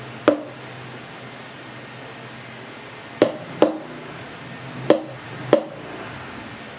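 Five sharp knocks of hard objects set or tapped down on a countertop, one about a quarter second in, then two close pairs over the last half, each ringing briefly.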